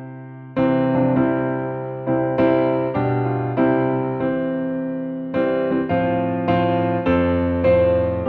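Piano playing a hymn tune in full chords, each chord struck and left to ring and fade before the next, about once or twice a second.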